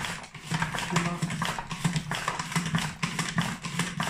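Manual mandoline slicer, an apple pushed down through the blade with its plastic pusher: a run of irregular clacks and knocks, several a second, as the plastic parts knock and the apple is cut into thin rings.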